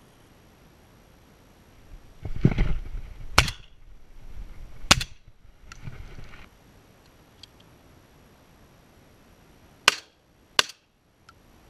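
Four shotgun shots fired at doves in flight: two about a second and a half apart near the middle, and two less than a second apart near the end. Rustling handling noise comes just before the first shot.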